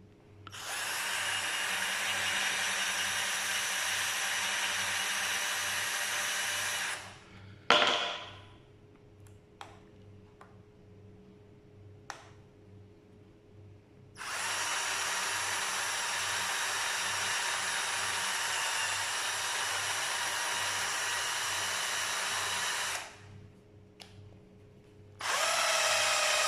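Cheap 12 V cordless drill/driver running in three long steady bursts as it drills a hole through hard plastic, with a sharp knock between the first and second bursts.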